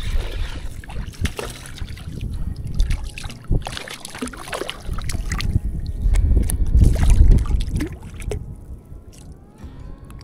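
Water splashing and sloshing as a hooked speckled trout is reeled in and thrashes at the surface, with repeated short splashes and a heavy low rumble loudest a little past the middle.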